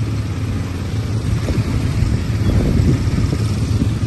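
ATV engines running as the quads ride along a dirt trail: a steady low engine hum over rough, uneven noise from the ride.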